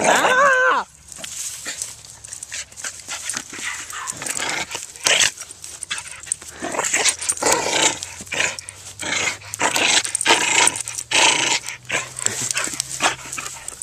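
Dogs playing close to the microphone: a short wavering whine at the very start, then a run of breathy snuffling and scuffling noises from the dogs nosing and jostling around.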